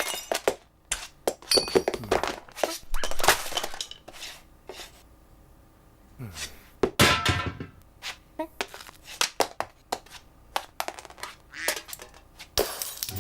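Irregular knocks, clatters and clinks of hard objects being knocked about, with a short quiet pause about halfway through.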